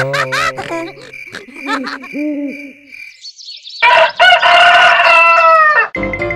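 A rooster crowing once, a long call of about two seconds starting about four seconds in and dropping at its end: the morning wake-up sound effect. Before it come a few shorter pitched calls.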